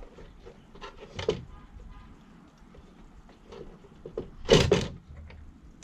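Vacuum cleaner parts being handled on a workbench: a knock about a second in, then a louder double knock near the end.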